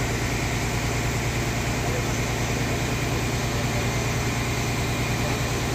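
Ferry boat's engine running with a steady low drone.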